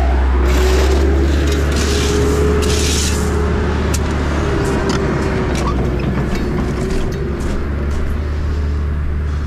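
Heavy earthmoving machine working: its diesel engine runs with a deep steady rumble, and a hydraulic whine rises and falls. Bursts of hiss come and go in the first few seconds.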